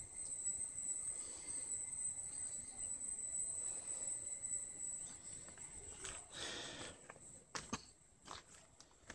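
Forest insects keeping up a steady high-pitched drone that fades near the end. About six seconds in come a rustle and a few sharp clicks, footsteps on loose stones of a rocky trail.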